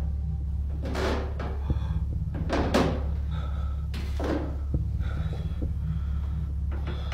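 Heavy breathing close to the microphone, loud rushes about every second and a half, over a steady low hum.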